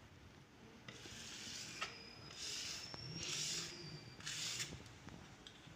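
Plastic squeegee pushed in strokes over holographic rear projection film on wet glass, squeezing the water out from under it: four swishing strokes, with a thin high squeak through the middle strokes.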